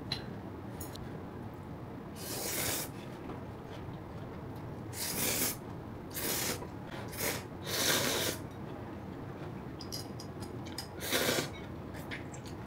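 A person slurping instant ramen noodles in about six short bursts, with a few faint ticks between them.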